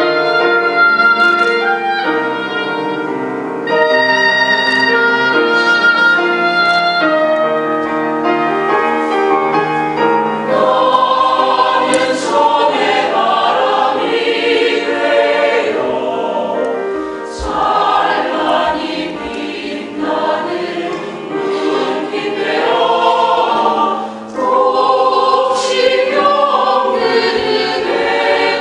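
An oboe solo plays a slow, held melody. About ten seconds in, a mixed choir of men's and women's voices enters singing.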